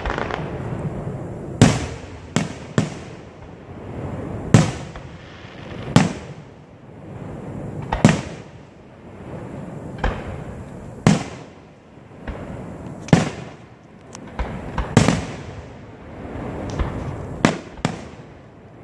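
Aerial firework shells bursting overhead, a sharp bang every one to two seconds, about a dozen in all, each trailing off in echo.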